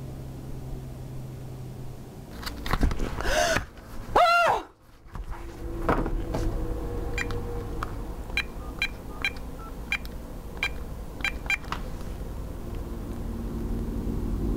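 Cordless phone keypad beeping as a number is dialed: about ten short beeps in quick, uneven succession. Before it, a loud swooping tone that rises and falls in pitch.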